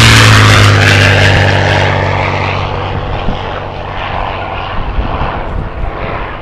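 Large radio-controlled model P-51 Mustang's propeller engine making a pass: loud at first, its pitch dropping as it goes by, then fading away.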